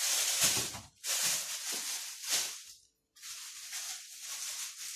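Thin plastic bag crinkling and rustling as it is handled and filled with raw chicken pieces, in three bouts separated by short pauses about one second in and about three seconds in.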